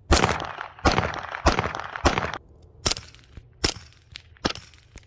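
9mm CZ Scorpion fired through a Resilient RS9 stainless-baffle suppressor. It fires about eight single shots at an uneven pace, roughly one every half to three-quarters of a second; the first four ring on longer than the last few.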